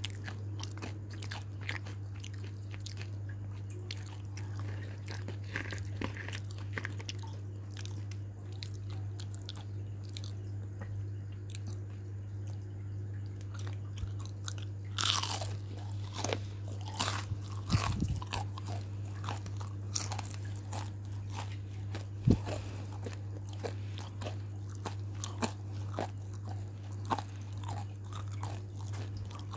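Crispy fried food being bitten and chewed close to the microphone: a dense run of small crackling crunches, with louder crunches about halfway through. A steady low hum runs underneath.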